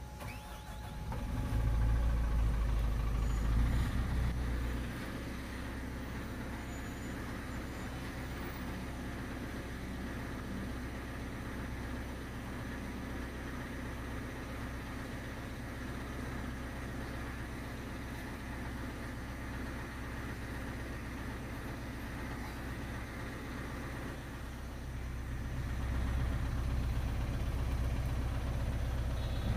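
Cat 320GC excavator's diesel engine starting about a second in, running louder for a few seconds, then settling to a steady idle around 950 rpm. It grows louder again near the end.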